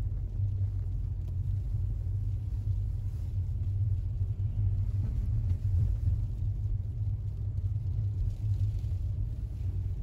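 Steady low rumble of a car driving, heard from inside the cabin: road and engine noise.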